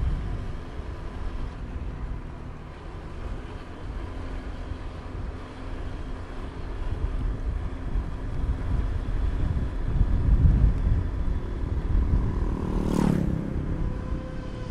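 Motor scooter being ridden, its engine running steadily under a low rumble of wind and road noise. Near the end a brief, louder rush sweeps across.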